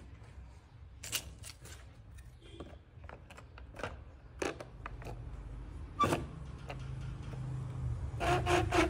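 Scattered clicks and knocks of wooden mold-frame strips being handled and set in place on a plaster-casting table, over a low hum that grows in the second half. A man's voice starts near the end.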